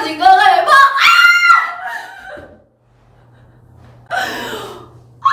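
Women laughing loudly with high-pitched shrieks for about two and a half seconds, then a short breathy burst of laughter about four seconds in.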